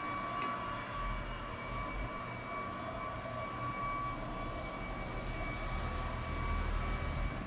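Steady background mechanical drone with a thin, high, whistle-like tone over it, and a low rumble building near the end.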